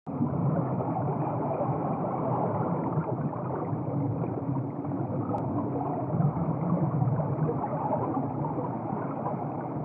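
Beer pouring and bubbling: a steady, muffled rush of liquid that starts suddenly and holds level throughout.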